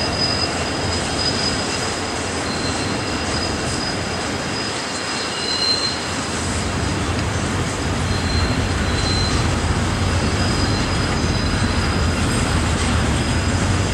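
Kansas City Southern freight train rolling past, its cars making a steady rumble on the rails, with thin high-pitched wheel squeals coming and going over it.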